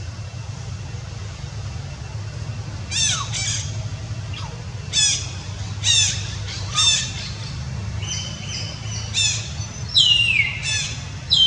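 Infant long-tailed macaque giving about nine short, high-pitched calls, each sliding down in pitch, starting about three seconds in and coming faster near the end, over a steady low rumble.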